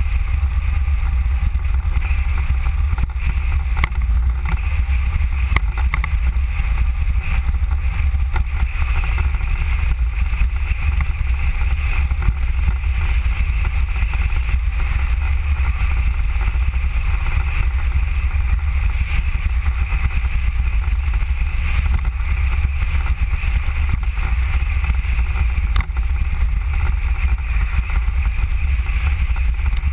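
Riding noise of a Mango velomobile rolling along an asphalt road: a steady deep rumble with a band of hiss above it, from wind and tyres while the vehicle is underway.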